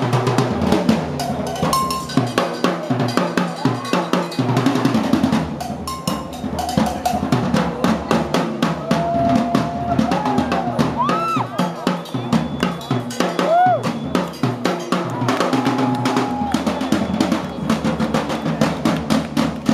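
Percussion music accompanying a fire show: several drums beating a fast, dense rhythm with snare-like hits. A few short high tones glide up and down over the drumming near the middle.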